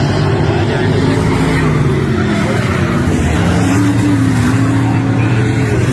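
Race car engine running hard, loud and continuous, its pitch wavering up and down.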